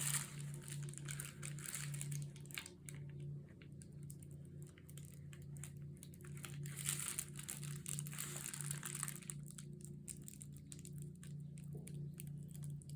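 Recycled Amazon mailer envelope crinkling and rustling as it is handled and pressed together while its bottom edge is glued, with denser crinkling near the start and again around the middle.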